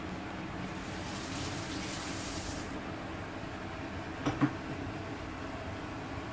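Steady low room hum; about a second in, a high hiss lasts just under two seconds, and a little after four seconds come two quick knocks close together.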